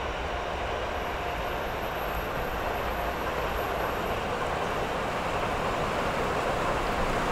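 E257 series electric train running along the track: a steady rolling rumble and hiss from its wheels on the rails.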